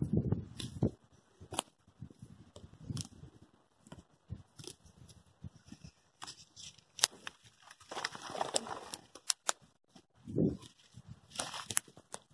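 Footsteps rustling through dry grass and brush, with many scattered sharp twig snaps and crackles and a few longer rustles.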